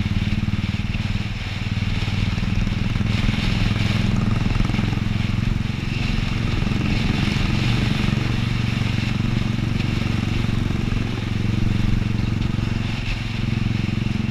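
Royal Enfield motorcycle's single-cylinder engine running at a steady cruise, heard close from the bike, with a rush of wind and road noise over it.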